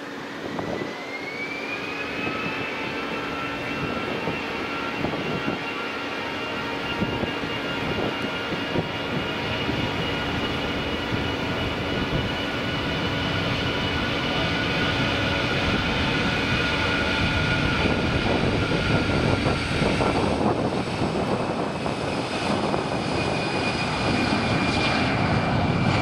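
Jet airliner's engines spooling up for the takeoff roll: a whine rising in pitch over the first couple of seconds, then a steady whine over a rumble that grows gradually louder, the rumble taking over near the end.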